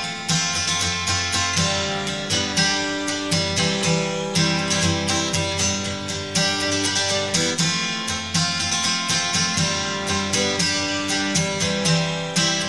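Background music: acoustic guitar picked and strummed at a steady pace.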